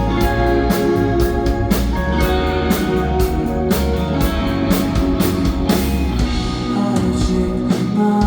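Rock band playing an instrumental passage of the song between sung lines: guitar to the fore over bass and regular drum hits.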